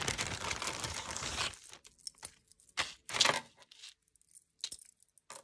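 Zip-top plastic bag crinkling as it is opened for about a second and a half, then a few short jingles of a thin metal necklace chain as it is lifted out.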